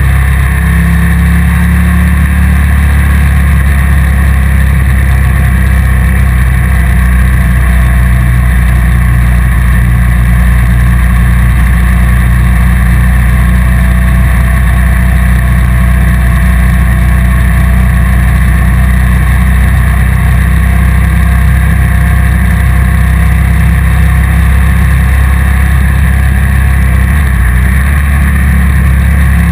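Motorcycle engine running at a steady cruise, with wind noise on the bike-mounted camera's microphone; the engine note changes only a little as the road curves.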